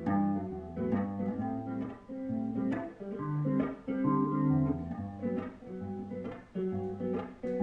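Acoustic guitar playing alone between sung lines: a run of picked chords with the bass notes moving beneath them.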